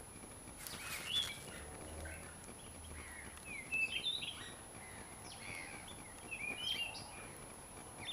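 Birds chirping in the background: a few quick, twittering chirps about a second in, a busier run around four seconds in and more around six to seven seconds, over a faint steady hiss.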